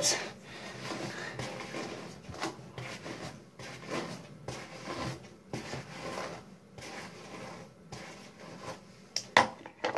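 Hairbrush dragged through wet hair in repeated short, scratchy strokes at an uneven pace, with a sharper click near the end.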